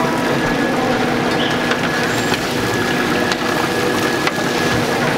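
Stir-fry station over a big open fire: a steady roar and hum, with scattered sharp clicks of metal spatulas scraping and tapping the warped pizza-pan tray.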